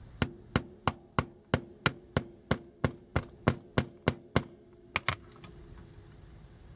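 Steady tapping on a small glued plastic connector piece, seating it into a toy fist: about fourteen even taps at three a second, each with a short ring, then two quick taps about a second later.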